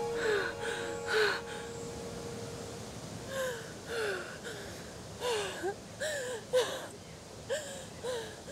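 A woman's frightened gasps and whimpers: short, sharp breaths whose pitch drops on each one, three close together, then a pause of about two seconds, then a faster run to the end. A held music drone fades out during the first few seconds.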